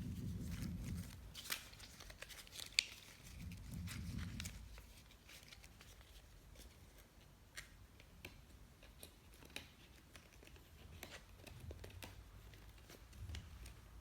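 Light, scattered clicks and taps with some rustling from hands handling a new MacBook Air and its packaging. Two spells of low rumbling handling noise come in the first few seconds.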